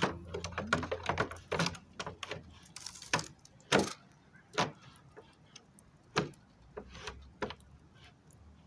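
A wooden drawer being worked onto drawer rails salvaged from a dresser: a string of irregular sharp clicks and knocks, the loudest about four seconds in.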